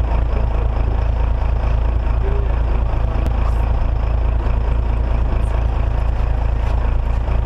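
Fishing boat's engine running steadily while trolling: a constant low drone with an even hiss of wind and water over it.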